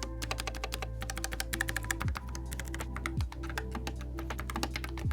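Fast, continuous typing on a Keychron K3 Max ultra-slim low-profile mechanical keyboard, a dense run of key clicks, with background music underneath.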